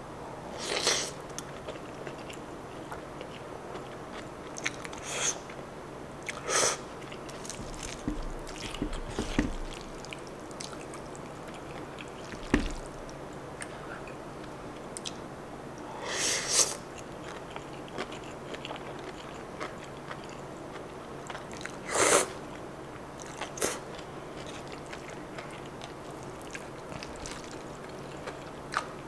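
Close-miked eating of kimchi bacon angel hair pasta: steady chewing with about half a dozen short slurps or bites of the noodles spread through.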